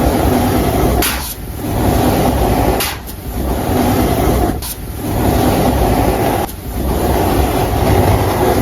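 Baking soda powder squeezed and crushed by hand, a continuous gritty crunching that drops off briefly about every one and a half to two seconds between squeezes.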